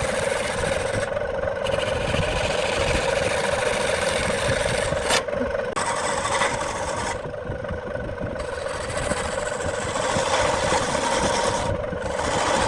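Wood lathe running with a steady motor hum while the spinning wood-and-epoxy blank is worked, a rough scraping that breaks off briefly several times as the tool or abrasive is lifted from the piece.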